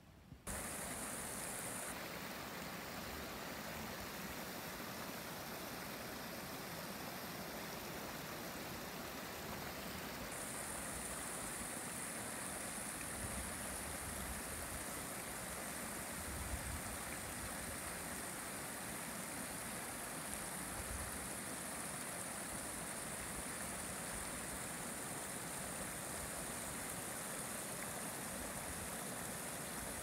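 Shallow stream running over rocks: a steady rush of water that starts abruptly about half a second in.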